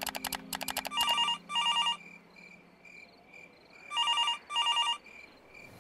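Desk landline telephone ringing with a double ring, two rings in quick succession, heard twice about three seconds apart. It is preceded in the first second by a quick run of rapid clicks.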